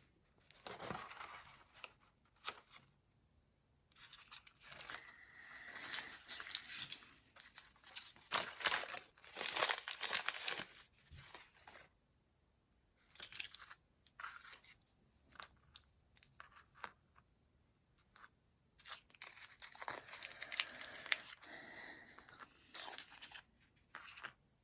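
Small plastic wrapping being torn open and crinkled in irregular bursts, with a few short clicks and taps of small parts in between.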